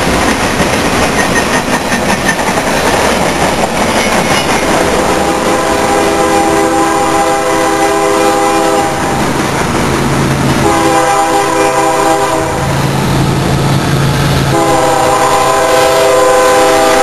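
Freight cars rolling past on the rails, while a BNSF ES44AC diesel locomotive leading an approaching coal train sounds its air horn in three blasts. The first blast comes about five seconds in, the second is shorter, and the third is still sounding as the locomotive draws close.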